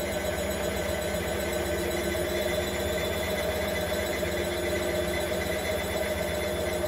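Hotpoint WM22 1000 Deluxe washing machine running a spin cycle: the drum motor gives a steady tone over a low hum, holding an even speed.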